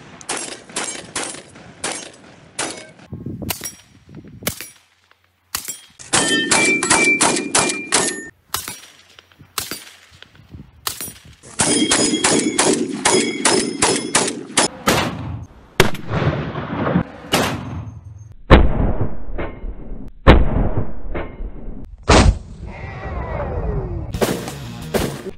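Rifle fire from several guns in turn. Scattered single shots come first, then two rapid, evenly spaced strings of shots, each a couple of seconds long. Last come slower, heavier single shots with a deep boom.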